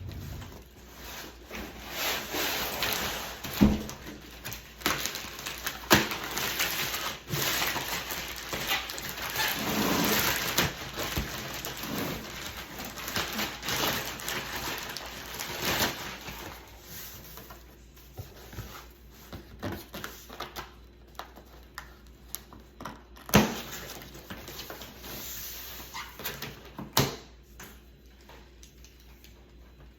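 Rustling, scraping and scattered knocks of a boxed car fridge and its packaging being handled and unpacked, busier in the first half and sparser later, with a few sharper knocks.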